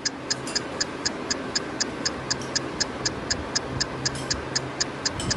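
Steady, rapid timer ticking, about four sharp ticks a second, counting down an eating challenge.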